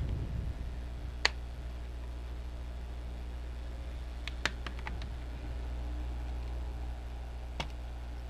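A few sharp light clicks from small parts being handled during laptop disassembly: one about a second in, a quick cluster of three around four to five seconds, and one near the end, over a steady low hum.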